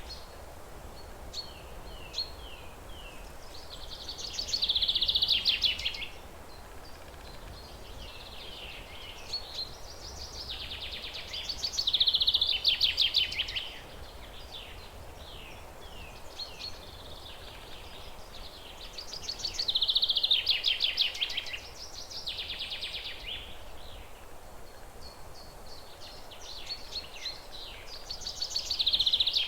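A songbird repeating the same song four times, about every eight seconds. Each song is a fast, high rattling trill lasting about two seconds, with short, quick descending chip notes in between, over steady background noise.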